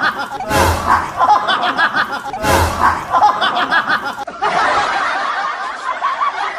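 Laughter in swells that come again about every two seconds, giving way about four seconds in to a denser, steady hiss-like sound.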